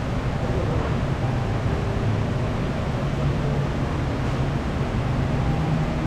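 Steady rushing outdoor noise with a low, fluttering rumble of wind buffeting the microphone.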